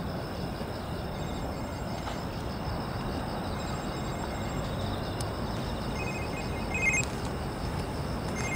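Autumn insects chirping in short repeated trills, loudest about seven seconds in, over a steady low rumble.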